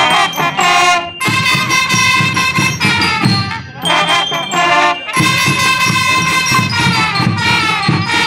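School band playing a tune in short phrases, a bright brass melody over a steady drum beat.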